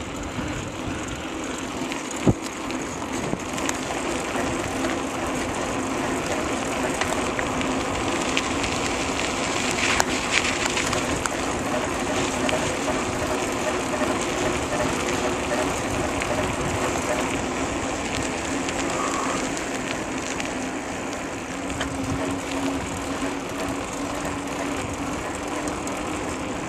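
Mountain bike ridden fast along an asphalt road: a steady rushing noise of wind on the microphone and rolling tyres, with a sharp knock about two seconds in.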